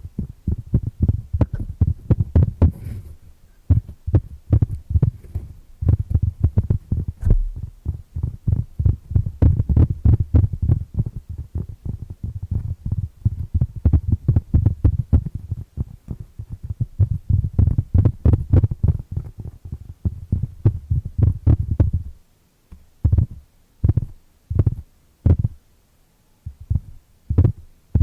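Fingers tapping rapidly on a cork board, a dense run of dull, low thuds. About 22 seconds in, the tapping thins out to slower, separate taps.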